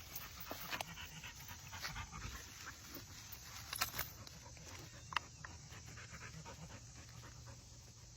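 A dog panting rapidly and steadily close by, with a couple of brief sharp clicks along the way.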